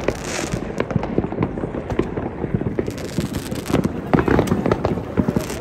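Many New Year's fireworks going off at once: a dense, continuous stream of bangs and crackling pops with no pause.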